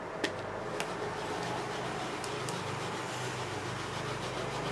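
A clear photopolymer rubber stamp being cleaned off-camera: a steady rubbing, scrubbing noise, with two light clicks in the first second.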